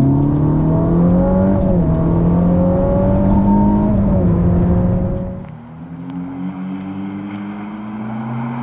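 Ferrari SF90 Stradale's twin-turbo V8 pulling hard on a wet track, its note climbing, dipping briefly about two seconds in, then holding. About five seconds in the throttle is lifted: the engine falls to a quieter, lower note and the hiss of tyres on standing water rises.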